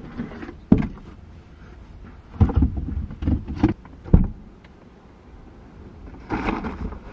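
Muffled knocks and thumps on a car's body, heard from inside the cabin as things are handled at the rear of the car, then a longer rustling scrape about six seconds in.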